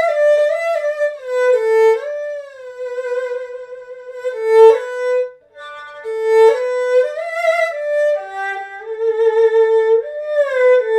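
Solo erhu bowing a slow, singing melody, with several slides between notes and quick upward grace-note flicks (打音, struck grace notes a step above the main note).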